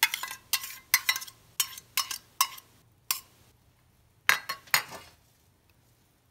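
A metal spoon clinking and tapping against a glass baking dish and a small steel bowl while yogurt and spices are spooned onto raw chicken. A quick run of short, ringing clinks fills the first three seconds, and a few louder ones come a little after four seconds in.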